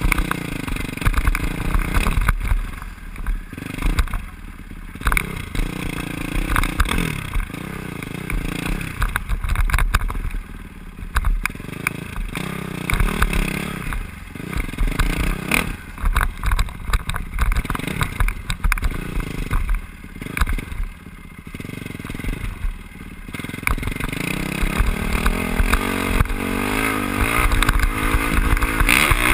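Dirt bike engine revving up and easing off again and again as it is ridden over a rough dirt trail, with wind noise at the helmet camera. Over the last few seconds the engine pitch climbs steadily under throttle.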